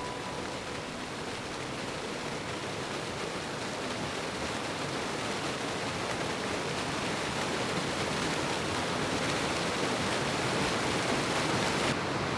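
A waterfall on a moorland stream rushing steadily, an even roar of falling water that grows slightly louder.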